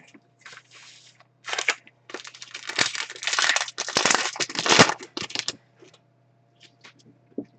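Plastic-foil trading card pack wrapper crinkling and tearing as a pack is ripped open, a run of crackling rustles lasting about five seconds before it stops.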